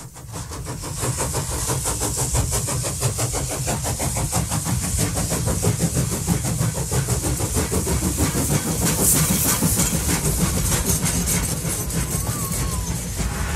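Train running at speed with a fast, even rhythmic beat, fading in at the start.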